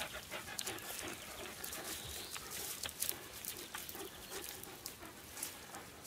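Irish wolfhounds sniffing and snuffling at the ground, with a steady run of small rustles and crackles from dry grass and paws.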